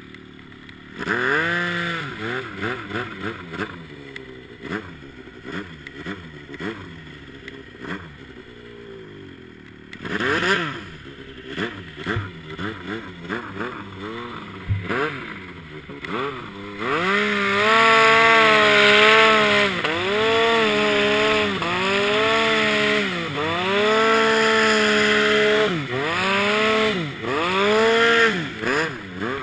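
Ski-Doo snowmobile engine revving in short throttle blips, then held at high revs in long pulls with brief dips, working under load in deep powder snow.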